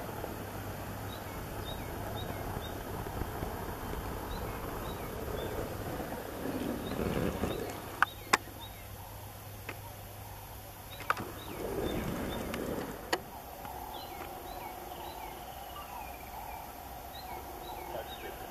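Bush ambience: small birds chirp repeatedly while a game-drive vehicle's engine idles low for the first several seconds and then fades. Two swells of rumbling noise and a few sharp cracks, the loudest sounds, stand out in the middle.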